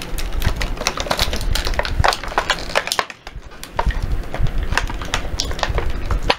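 Toy packaging being opened by hand: rapid, irregular crinkling and crackling with many small clicks, easing off briefly about three seconds in.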